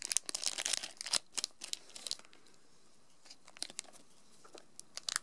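Crinkling of a thin plastic medal bag being handled as the medals are pulled out: a dense run of short crackles for about two seconds, then only a few scattered ones, with more crackles again near the end.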